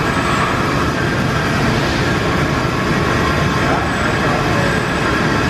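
Steady, even din of machinery in a steel-fabrication shop, at a robot station heating steel tube ends red-hot.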